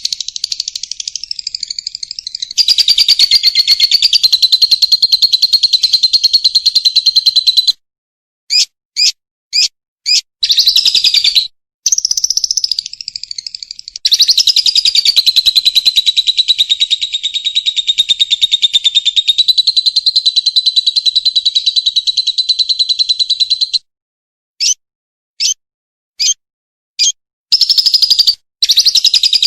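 Lovebird singing: long, rapid trilling chatter lasting several seconds at a time, broken by runs of short sharp chirps and sudden cuts to silence.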